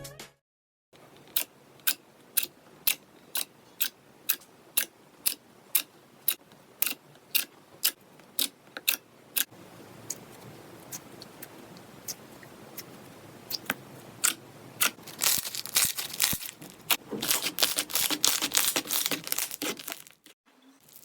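Slime being handled: first a run of sharp, evenly spaced clicks, about two a second, then after a quieter spell a few seconds of dense crackling and crinkling that stops shortly before the end.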